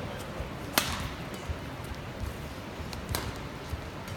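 Badminton rackets striking a shuttlecock in a singles rally: a sharp crack about a second in and another just past three seconds, with fainter taps between, over a steady low crowd murmur.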